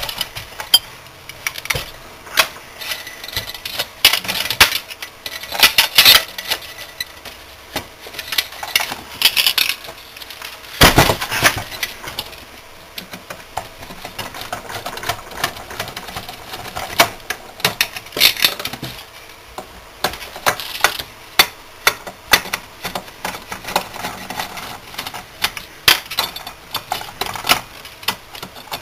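Irregular clinks, clicks and rattles of hand tools and small metal parts being handled during disassembly, with a louder clatter about eleven seconds in.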